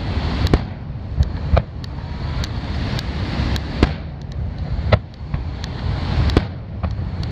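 Aerial fireworks shells bursting: a series of sharp bangs roughly a second apart, some louder than others, over a steady low rumble.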